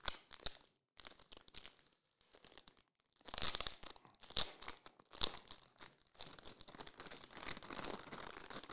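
Foil trading-card pack being torn open and its wrapper crinkled. The crackling comes in irregular bursts, loudest about three to four seconds in, then runs on as steadier crinkling.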